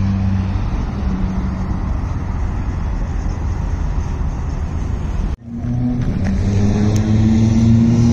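Rally car engine and tyre noise as a car runs along the road. It cuts off abruptly a little past five seconds in, and a Ford Fiesta rally car's engine takes over with a steady drone whose pitch slowly rises as the car approaches.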